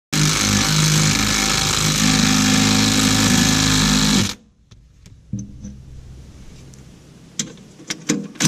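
Cordless impact driver running in a bolt on a steel cover plate of a mini excavator, hammering steadily for about four seconds before stopping. After it, scattered light clicks and taps of the tool and bolts being handled.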